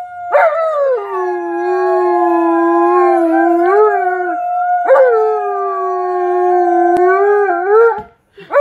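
An Alaskan Malamute and a boy howling together. One voice holds a steady higher note, while the other gives two long howls that each slide down in pitch at the start, the second beginning about five seconds in. Both stop shortly before the end.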